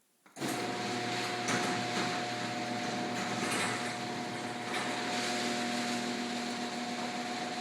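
Screw-drive garage door opener starting up suddenly and running steadily as the door travels, a constant motor hum and whine over a rushing rattle.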